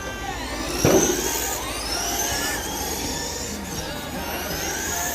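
Several 1/10-scale RC race cars' motors whining as they run laps, overlapping pitches rising and falling as the cars speed up and slow down. A short knock about a second in.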